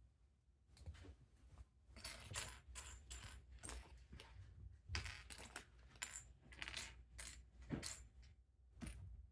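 Small plastic Lego pieces clicking and clattering against each other as they are handled, in several short runs of clicks.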